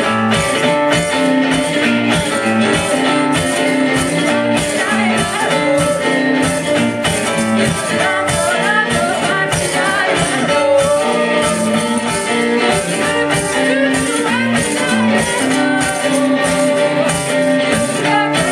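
A rock band playing live at full volume: drums keeping a steady beat, with guitar and some singing.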